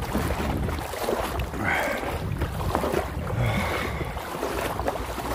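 Wind buffeting the microphone with a steady low rumble, over the slosh of shallow sea water stirred by someone wading through it.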